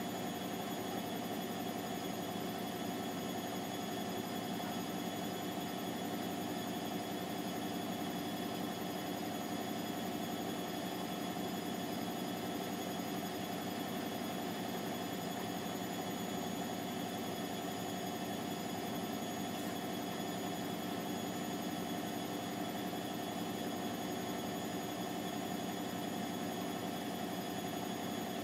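Bosch WVT 1260 front-loading washing machine in its final spin, drum and motor running at a steady high speed. The whine holds a constant pitch with no rise or fall.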